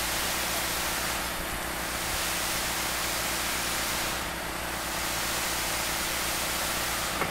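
Concrete pump running steadily, pushing concrete through the hose, its sound easing slightly about every three seconds.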